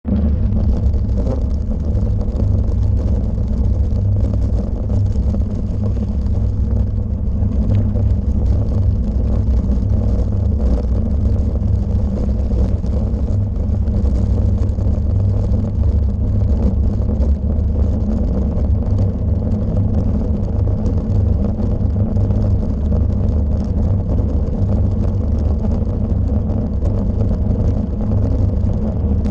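Bicycle ridden over cobblestones: a steady, heavy low rumble of the bike and camera shaking and rattling on the stones, with wind on the microphone.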